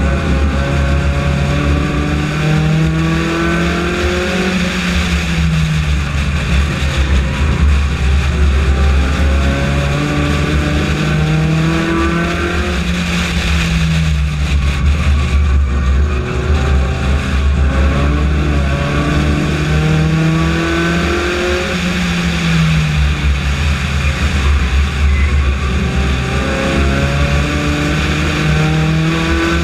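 Honda four-cylinder race car engine heard from on board under hard racing: the revs climb steadily along each straight and drop off into each turn, about four times, over constant road and wind noise.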